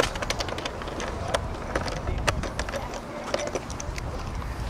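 Camcorder handling noise: a string of irregular clicks and knocks over a low rumble as the camera is moved about with its picture blacked out.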